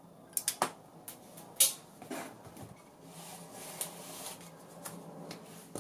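Handling noise from the opened metal chassis of a Kollsman CPU-46/A-22 electro-mechanical air data computer being turned over on a workbench. A few quick clicks and knocks come first, then one louder knock about a second and a half in, then rubbing and rustling.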